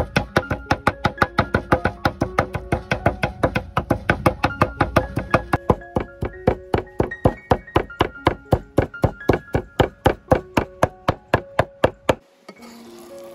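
A knife chopping on a wooden cutting board in a fast, even rhythm of about four strokes a second, over background music. The chopping stops about twelve seconds in.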